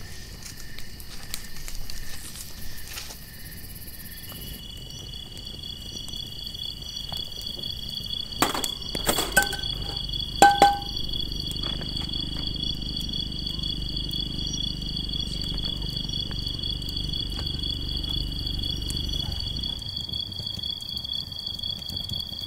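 A distant vehicle engine climbing the mountain road, a low rumble that builds from about eight seconds in and stops near the end, over a steady high insect drone. A few sharp knocks come in the middle.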